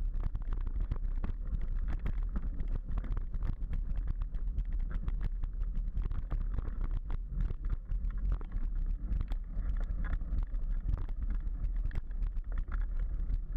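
Mountain bike riding down a rough dirt trail: a steady low wind rumble on the microphone with constant small clicks and rattles as the bike goes over bumps and stones.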